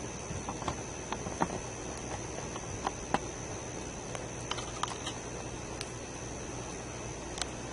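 Wood campfire crackling, with irregular sharp pops over a soft steady hiss.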